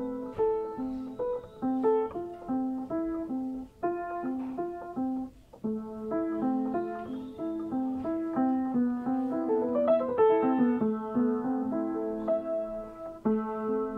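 Upright piano being played: a flowing melody over a repeating accompaniment. There is a brief pause about five seconds in, and a quick rising run of notes near ten seconds.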